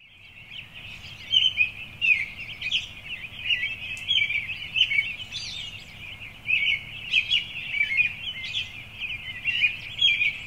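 A dense chorus of many small birds chirping and twittering at once, beginning abruptly and never pausing.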